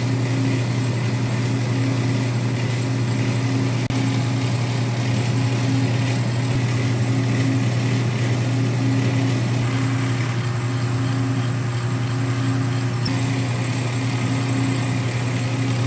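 South Bend 10K metal lathe running steadily with a low, even hum from its motor and spindle drive while it turns a tapered plug using the taper attachment.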